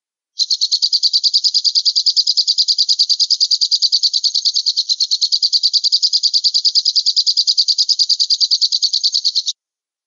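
Alap-alap (small falcon) call: a fast, even series of sharp high notes, roughly ten a second. It starts abruptly about half a second in and cuts off suddenly near the end.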